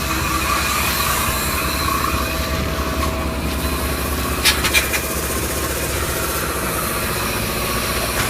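Polyurea spray rig's motor running steadily between spray passes, with no spraying; a couple of short clicks come about halfway through.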